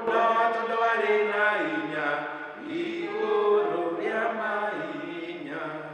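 A man singing a hymn, holding long notes while the tune steps up and down.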